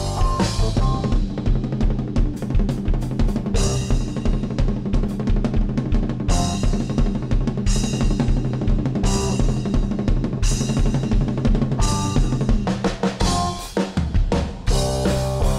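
Rock drum kit solo: rapid rolls and hits on snare, toms and bass drum, with a cymbal crash about every second and a half. Near the end the drums briefly drop back and the band's pitched instruments come back in.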